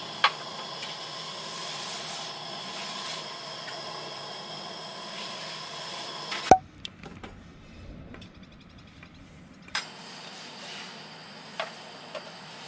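Camp cooking: a steady hiss with a few sharp clicks. A sharp knock about six and a half seconds in cuts the sound off; it comes back about three seconds later.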